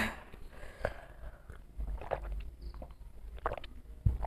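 Drinking glasses handled at a table and sipped from: a few light knocks and clicks, sharpest at the start and about a second in, with a low thump near the end.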